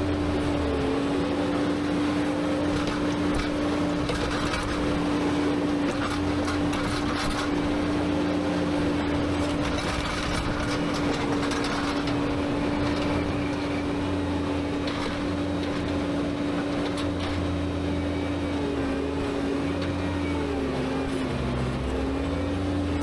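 Skid steer engine running at high revs with a steady drone; its pitch sags briefly under load about a second in and again near the end. Scattered knocks and clanks sound over it.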